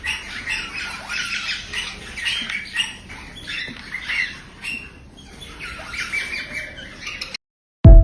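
Parrot chicks giving rapid, repeated squawking begging calls as they are hand-fed formula. The calls cut off near the end, and a loud musical note starts right at the close.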